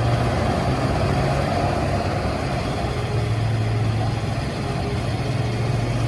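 Heavy diesel mining machinery, a Cat hydraulic mining excavator and haul truck, running steadily with a constant low hum.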